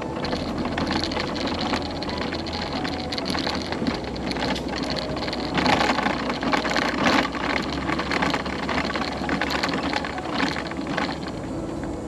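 Pride Mobility Pursuit 2 mobility scooter on the move, its electric drive humming steadily under the rolling and rattling of the ride, with a stretch of louder clatter about six to seven seconds in.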